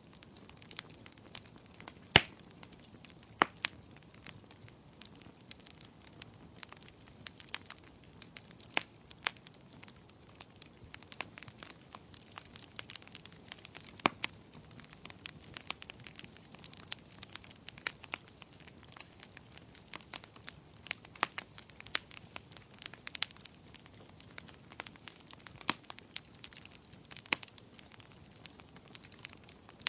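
Fireplace fire crackling: irregular sharp pops and snaps over a faint steady hiss, with one louder pop about two seconds in.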